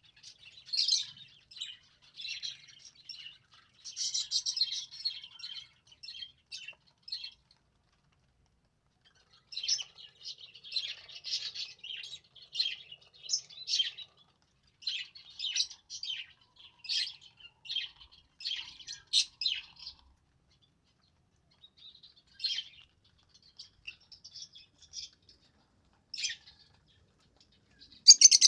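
A budgerigar and lovebirds chirping in quick runs of short, high chirps, broken by pauses of a couple of seconds, with a loud burst of chirping near the end.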